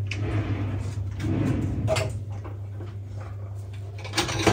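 Soft knocks, clicks and handling noises at a kitchen counter as bread dough is stretched and worked by hand, over a steady low hum; a few sharper clicks near the end.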